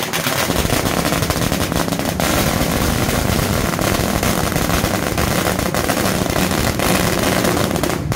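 A long string of firecrackers going off in a rapid, continuous crackle of bangs.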